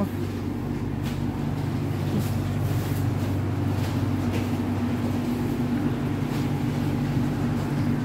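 Steady low hum with several held tones, typical of the refrigeration machinery in a chilled shop section, with a few faint ticks of handling.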